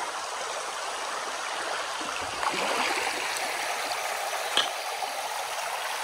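Shallow, wide creek running over a stony bed: a steady babble of flowing water.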